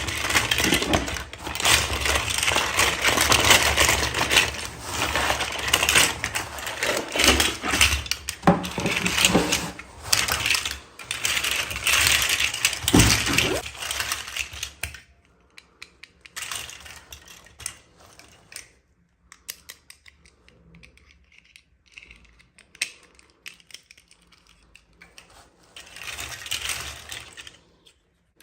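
Hands unboxing and handling small plastic toys and their packaging: dense rustling, scraping and clicking for about the first half, then sparse light clicks, with another short burst of rustling near the end.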